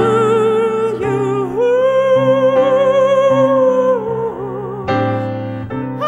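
A slow ballad: a solo voice sings with vibrato over acoustic piano chords, rising to a long held note from about a second and a half in until about four seconds in.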